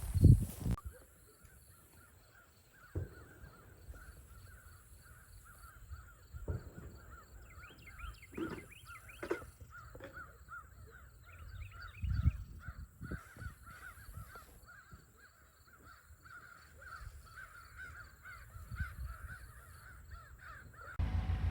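Outdoor ambience of birds and insects calling steadily, with a few scattered thumps. Near the end a machine engine suddenly starts running with an even, low pulse.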